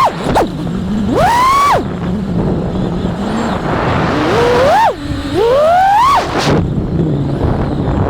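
Brushless motors of a 5-inch FPV quadcopter (T-Motor F60 Pro IV, 1750kv) whining as the pilot punches the throttle: the pitch climbs steeply and then drops off sharply, three times, with a low hum at low throttle between punches. Rush of wind and propwash underneath.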